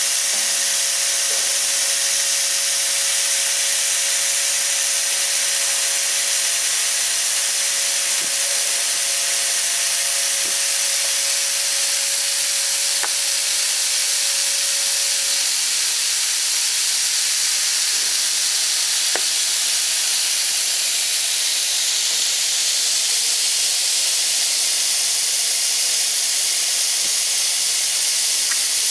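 Two-head laser cutting machine cutting MDF board, with a steady hiss of compressed assist air blowing from the cutting heads. A steady humming tone runs under the hiss and stops about halfway through.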